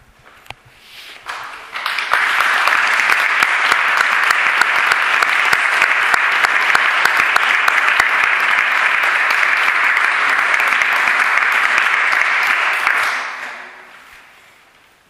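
Audience applauding: a few scattered claps about a second in swell into full applause, which dies away near the end.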